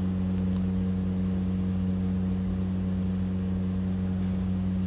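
Steady low machine hum with an unchanging drone, like a motor or engine running nearby.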